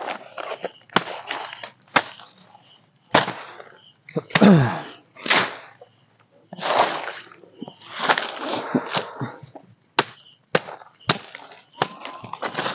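A machete chopping and wood snapping in irregular sharp strikes, with rustling between them and one creak falling in pitch about four and a half seconds in.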